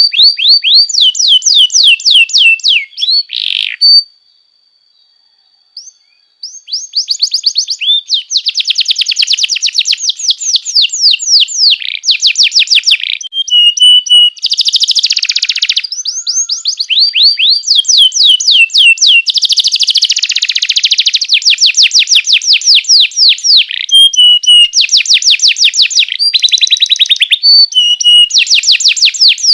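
Domestic canary singing: fast trills of rapidly repeated sweeping chirps, one rolling series after another. About four seconds in, the song stops for roughly two seconds, then resumes.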